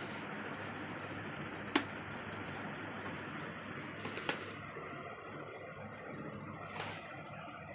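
Handling of the mini fan's parts and packaging: three sharp clicks, about two and a half seconds apart, over a steady hiss.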